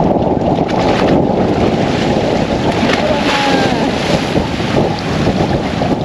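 Wind buffeting the microphone over sea waves washing against the ladder steps, with splashing as a man wades down into the sea and starts swimming.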